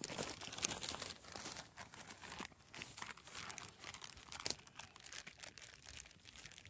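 Clear plastic bag crinkling and rustling as it is handled, with irregular crackles throughout.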